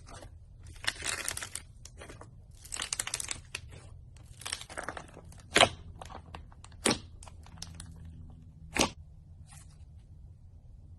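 Slime being squeezed and worked by hand: three crackly, crunchy squishes in the first half, then three sharp pops spaced a second or two apart, and a faint crackle near the end.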